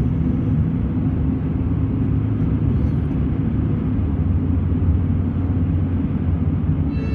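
Steady engine and tyre rumble heard inside a car's cabin while driving along an open road.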